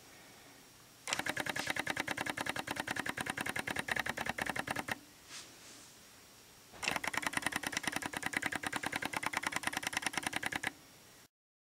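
Canon DSLR lens focus motor stepping in rapid, even clicks, about a dozen a second, as a remote follow-focus drives focus in small steps at medium speed. It runs for about four seconds, stops, then runs again for about four seconds as focus racks back the other way.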